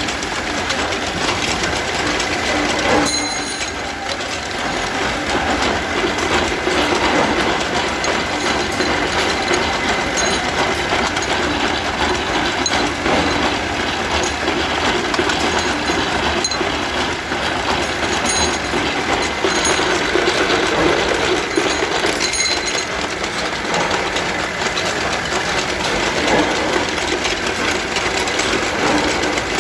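Rebar straightening machine running, a continuous dense mechanical rattle as steel bar is fed through it, with a few sharp metallic clinks that ring briefly.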